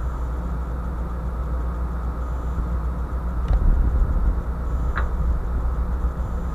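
Steady low hum of a ship's onboard machinery running, with a few faint short chirps near the middle and at the end.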